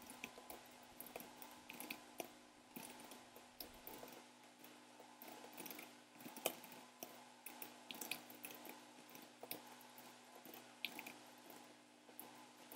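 Faint computer keyboard typing: irregular soft key clicks over a faint steady hum.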